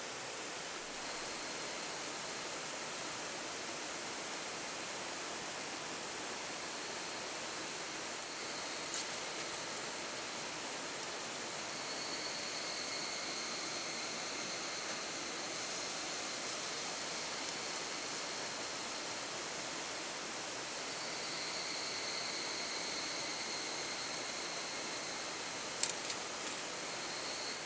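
River water flowing in a steady rush, with a faint steady high-pitched tone over it. A sharp click sounds about nine seconds in and two more near the end.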